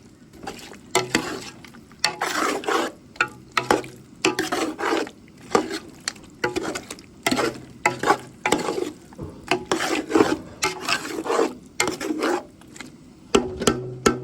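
A utensil stirring and scraping food in a cooking pan, in quick, uneven repeated strokes, with a faint sizzle.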